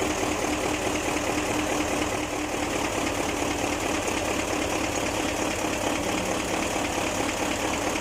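Mitsubishi Fuso 8M20 V8 diesel engine running steadily at idle with a knock in its beat, the fault being troubleshot.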